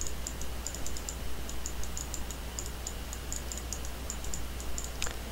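Faint, irregular small clicks, several a second, from the input device as letters are drawn stroke by stroke on the computer, over a steady low hum.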